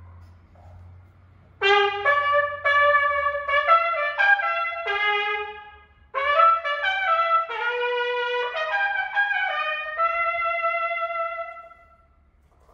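Four-valve trumpet playing two short phrases of separate notes that move up and down, a brief break between them. The second phrase ends on a longer held note.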